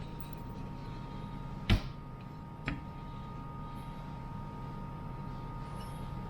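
Two sharp knocks about a second apart, the first louder, as the cover is fitted back onto an ARB dual portable air compressor.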